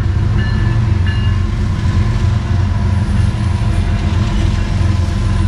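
Freight train with three diesel locomotives passing, a steady heavy rumble, with a few short high tones about half a second to a second in.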